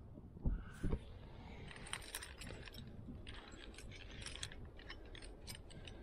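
Climbing rack of carabiners and cams on a harness gear loop clinking and jangling as it is handled, with many small metallic clicks. Two dull thumps come about half a second and a second in.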